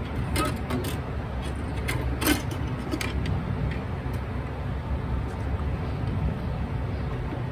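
Steady low background hum, with a few light clicks and taps from handling a guitar string and tools over a bowl-back mandolin's top. The most distinct tap comes a little over two seconds in.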